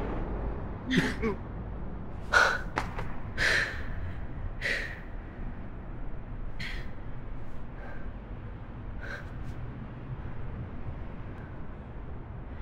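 A person gasping for breath in short bursts, several in the first five seconds and a few more spaced out later, over a low steady hum.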